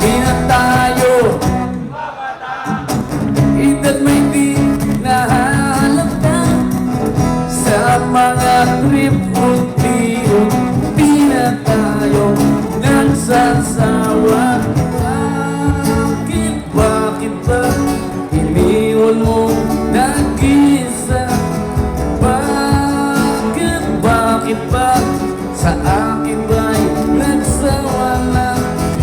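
Music: a song with a singing voice over instrumental accompaniment, which picks up after a brief dip about two seconds in.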